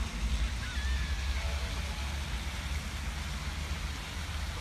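Outdoor ambience: wind rumbling unevenly on the microphone over a steady hiss, with a faint short chirp about a second in.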